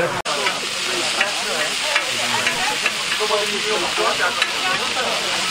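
Meat sizzling on a large street-food grill: a steady frying hiss with scattered small pops.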